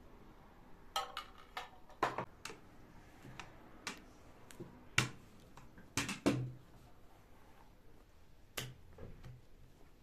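A dozen or so sharp clicks and light knocks, irregularly spaced, from kitchen utensils handled while making börek: a metal spoon against a plate and a rolling pin on a silicone mat. The loudest knocks come about halfway through and just after.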